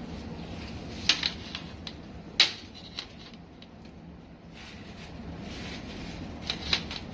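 A few sharp clicks and knocks of objects being handled, the loudest about two and a half seconds in and a quick pair near the end, over a low steady hum.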